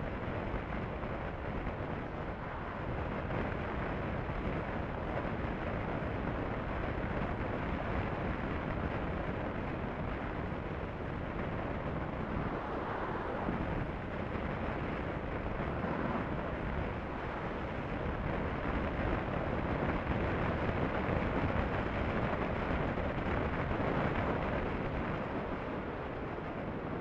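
Steady wind rush buffeting the microphone over a motorcycle's engine and tyre drone at highway cruising speed.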